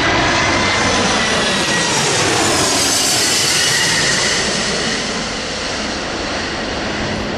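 Jet airliner's engines: a loud, steady rushing noise with a faint high whine that drifts slightly down in pitch, easing a little about five seconds in.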